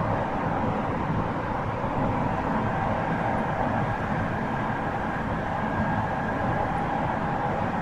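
Tsukuba Express TX-1000 series electric train running steadily, heard from inside the carriage: an even rumble of wheels on rail with faint steady tones over it.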